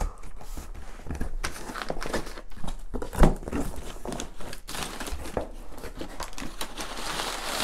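Crumpled brown kraft packing paper rustling and crinkling as hands dig through it inside a cardboard box, with one louder thump about three seconds in.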